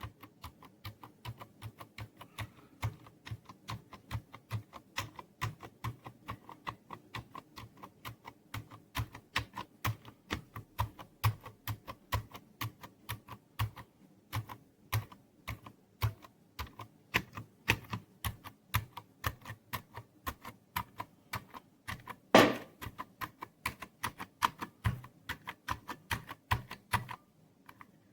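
Typing on a Cherry MX Board 3.0 S mechanical keyboard with MX Silent Red switches: a steady patter of key presses, several a second. There is one louder knock about 22 seconds in and a brief pause near the end.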